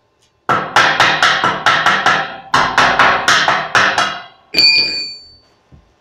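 A steel chipping hammer rapidly striking a fresh stick-weld bead on a steel-tube truss, about four blows a second in two runs with a short pause between, knocking the slag off so the bead can be inspected. Near the end comes one ringing metallic clang as the hammer lands on the floor.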